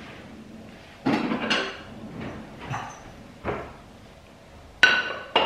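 Metal cake server scraping and knocking against the cake stand and plate as a slice of crumbly cake is lifted out, with two sharp clinks near the end that ring briefly.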